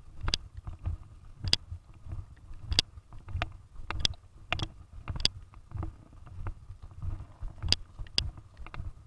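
Footsteps walking on wet grass, a dull thud about twice a second, with sharp irregular clicks and taps over them.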